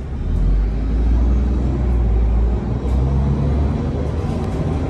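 Steady low rumble of engine and road noise from a moving car, heard from inside the cabin.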